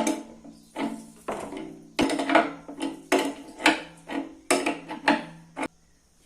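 Metal parts being knocked and struck, about a dozen irregular clanks, each leaving a ringing tone that hangs on, until the strikes stop suddenly near the end.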